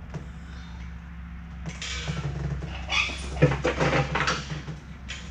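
Metal clanking and rattling from a shop engine hoist holding a two-post car lift column as it is handled on a concrete floor, over a steady low hum. A run of knocks begins about two seconds in, loudest around the middle.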